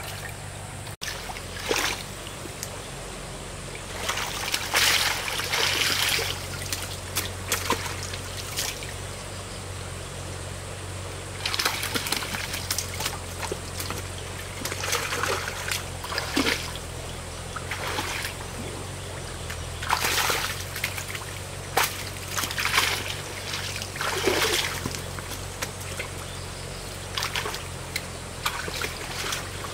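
Water splashing in repeated surges every few seconds, trickling in between, over a steady low hum.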